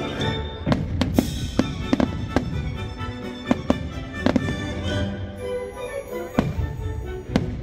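Fireworks bursting in a quick series of a dozen or so sharp bangs over the display's accompanying music.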